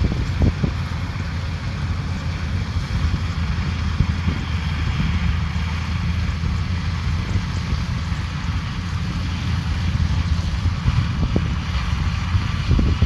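Combine harvester running steadily, with a low engine hum under a hiss of threshing and wind on the microphone.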